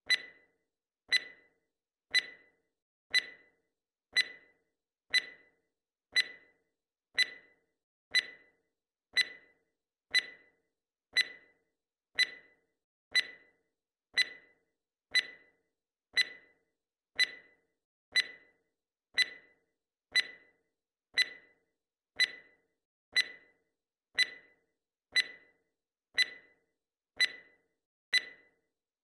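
Timer tick sound effect: a short, sharp tick about once a second, each dying away quickly, keeping time with the seconds count.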